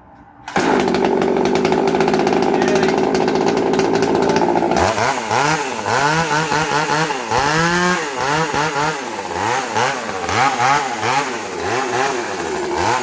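Makita two-stroke chainsaw engine starting after its carburettor was reassembled: it runs at a steady fast speed for about four seconds, then is revved up and down over and over.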